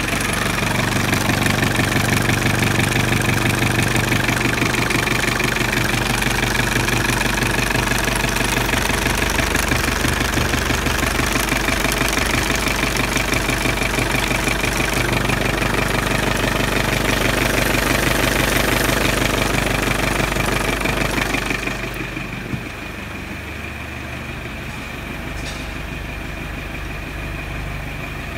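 Rover 200's 2.0-litre four-cylinder turbodiesel (20T2R) engine running steadily at idle, with a knocking diesel note; it grows quieter about 22 seconds in.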